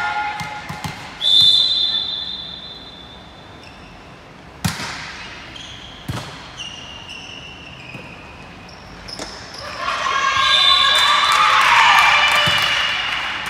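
Volleyball rally in a large echoing sports hall: a referee's whistle blows once, about a second in, followed a few seconds later by two hard strikes of the ball. Near the end, players' voices shout and cheer loudly as the point ends.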